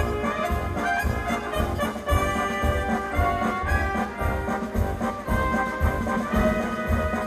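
Music led by brass instruments over a steady beat.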